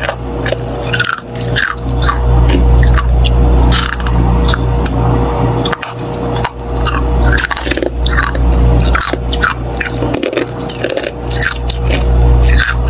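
Thick freezer frost being scraped and crunched in quick, irregular crisp crunches, over a steady low hum.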